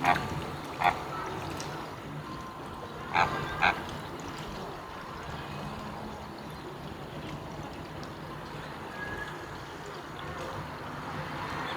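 Flamingos honking: four short, goose-like honks in the first four seconds, two near the start and a pair about three seconds in, over a steady low background of the flock.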